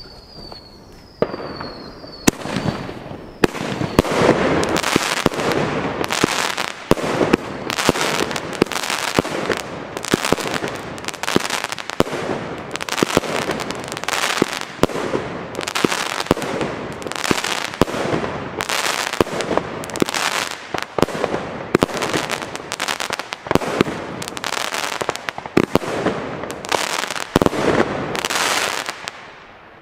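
Pyrofactory "Champagne" firework battery firing: a couple of short falling whistles in the first seconds, then a fast, unbroken run of shots and aerial bursts, with crackle between them, that stops just before the end.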